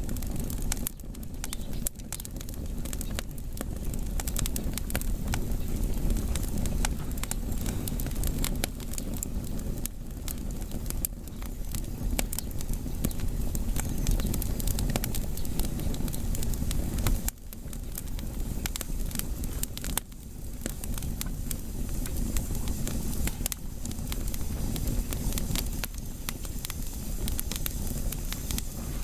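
Firewood burning, with many irregular crackles and pops over a steady low rumble of flame.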